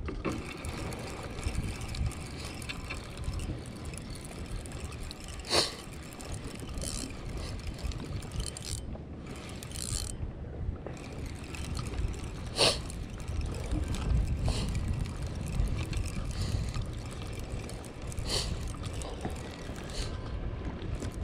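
Spinning fishing reel being cranked to wind in line, its gears whirring and ticking, over a steady rumble of wind on the microphone. Two sharp knocks stand out, about five and a half and twelve and a half seconds in.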